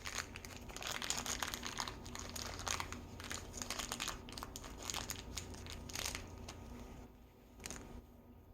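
A small toy's packaging being crinkled and torn open by hand, with irregular crackling that eases off after about seven seconds and leaves a click or two.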